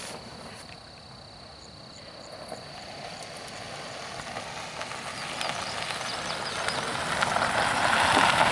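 A vehicle driving up fast and approaching, growing steadily louder, with rattles and knocks as it comes.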